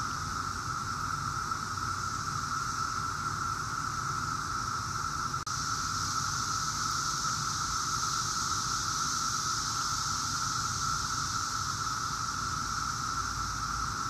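Brood X periodical cicadas in a dense, steady chorus: a continuous high droning buzz from many males calling to attract mates. It drops out for an instant about five and a half seconds in.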